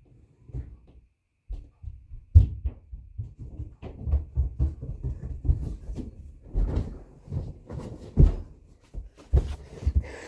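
Wind buffeting the microphone in irregular low thumps, with a few sharper clicks and knocks in between.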